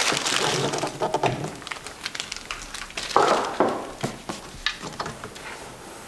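Handling noise: packaging rustling at first, then scattered light knocks and taps as the Form 1 3D printer is moved about on the table, with two louder knocks about three seconds in.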